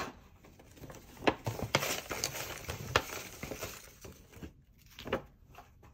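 Small wooden number cubes clicking and clattering together as they are shaken and mixed by hand, with a few sharper knocks.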